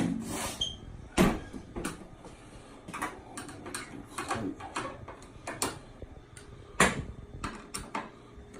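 Irregular clicks and knocks of hard plastic and metal parts being handled, with two sharper knocks about a second in and near the end.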